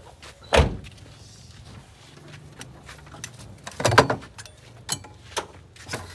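Low steady hum of a car, with a series of sharp knocks and clicks: the loudest about half a second in, a cluster around four seconds in, and a few smaller ones after.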